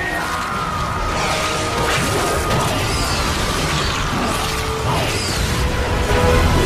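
Cartoon transformation sound effects layered over music: a dense, steady mix of crunching, mechanical-sounding effects with several rising-and-falling swishes, for Swampfire's transformation by the Omnitrix.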